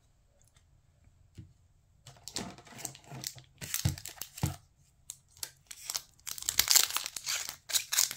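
Foil Pokémon booster-pack wrappers rustling as packs are picked up from a pile, with a few soft thumps, beginning about two seconds in. Near the end one wrapper crinkles loudly as it is gripped and torn open.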